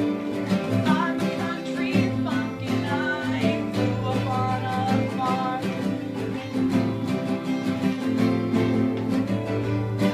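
Acoustic guitar strumming chords in a steady rhythm, with a melody line bending over it in the first few seconds.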